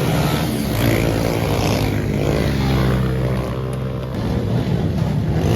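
Car engine running with a steady note that drops away about four seconds in.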